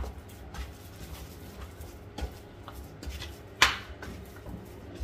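Hands kneading soft, oiled bread dough in a metal bowl: scattered soft slaps and squelches, with one sharper slap about three and a half seconds in.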